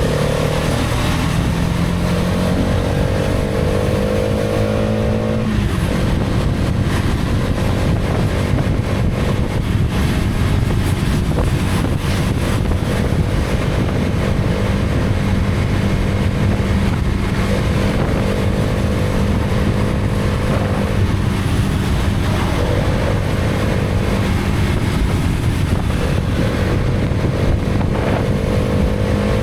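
Hero Karizma XMR's 210 cc single-cylinder engine running under way, its pitch climbing a little and then dropping back every few seconds as the throttle is worked, over a steady rush of wind and road noise.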